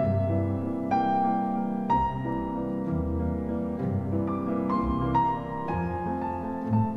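Classical piano music from the soundtrack: a slow melody with a new note struck about every second over sustained low notes.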